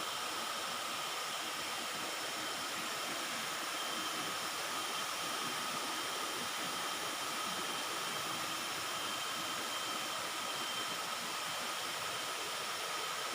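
Waterfall's rushing water: a steady, even noise that holds at one level throughout.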